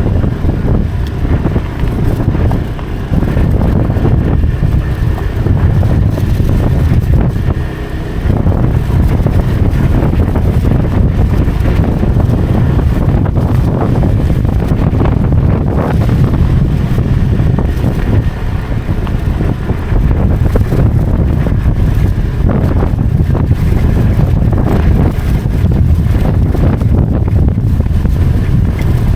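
Motorcycle engine running steadily while riding, with wind rushing over the microphone; the level dips briefly twice early on.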